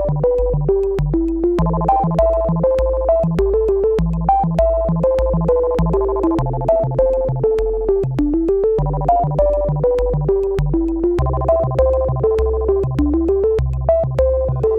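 Background music: an upbeat synthesizer melody over a repeating bass line, with a steady beat.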